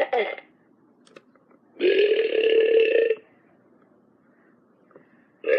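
Toy burping dog letting out burps: the tail of one at the start, one full burp of over a second about two seconds in, and the next starting near the end.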